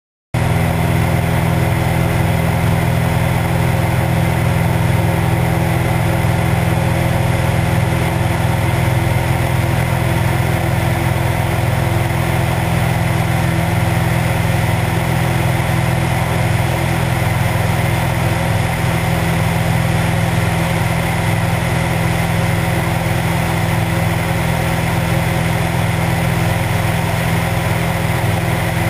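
A Cessna 172's piston engine and propeller running steadily in flight, heard from a camera mounted outside the cabin. The sound comes in abruptly just after the start and holds an even, unchanging pitch throughout.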